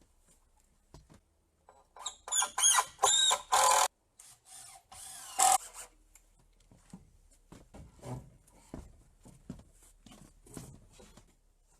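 A power drill runs in several short, loud bursts, its pitch rising and falling as it drives in. A steadier run ends with a sharp click, then come scattered light knocks and taps.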